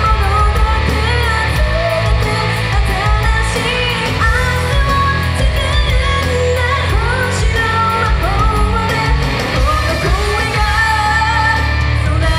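A female singer singing live into a microphone over a pop backing track with a strong, steady bass, played loud through a PA system.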